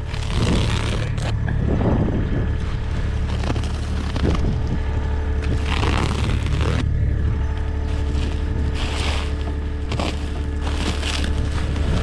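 A machine running with a steady low hum, with irregular scraping and crunching noises over it.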